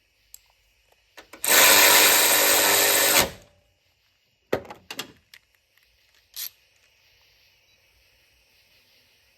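A DeWalt 12 V cordless ratchet runs steadily for about two seconds, driving a bolt down, then stops, followed by a few light clicks and knocks.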